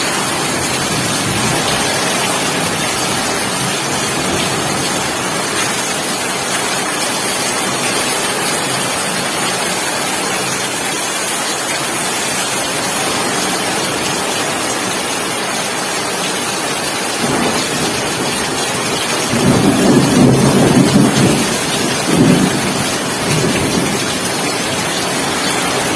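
Heavy rain pouring steadily in a thunderstorm, with a low rumble of thunder rolling in about three quarters of the way through.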